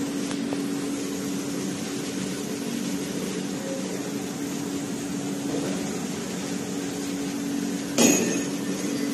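A steady low machine hum, with one sharp metallic strike that rings briefly near the end.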